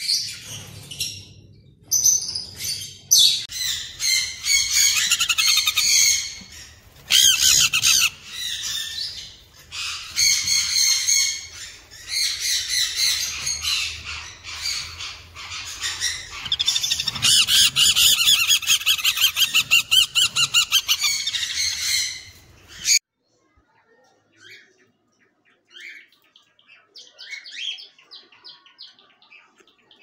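Small parrots squawking and chirping shrilly in rapid, dense runs of calls, cutting off abruptly about 23 seconds in; after that only a few faint chirps.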